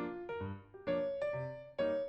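Background music: a piano-like keyboard playing a simple melody of struck notes, a new note about every half second.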